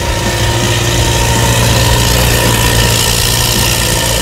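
The John Deere 4045 four-cylinder turbo diesel of an ALLTRACK AT-50HD tracked carrier running steadily at close range, with a steady hiss over the low engine hum, growing a little louder over the first two seconds.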